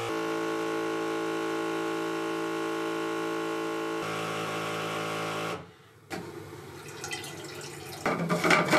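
A pump runs with a steady hum whose tone shifts once, then cuts off after about five and a half seconds. Scraping and knocking follow as a rubber hose is handled at a plastic tank, loudest near the end.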